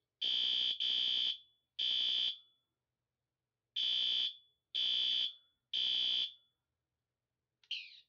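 System Sensor SpectrAlert Advance P2R fire alarm horn sounding loud half-second blasts in the temporal-three evacuation pattern: three blasts, a pause, then three more. It has been set off from a Fire-Lite BG-12L pull station.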